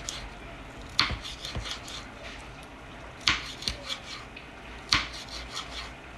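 Kitchen knife slicing a green bell pepper on a bamboo cutting board: three sharp knocks of the blade striking the board, about a second in, just past three seconds and near five seconds, with lighter taps between.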